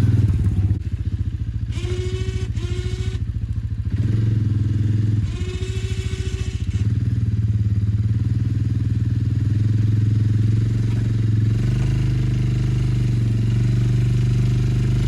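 A four-wheeler (ATV) engine running steadily while plowing. Twice, a shrill squeal lasting a second or so sounds over the engine.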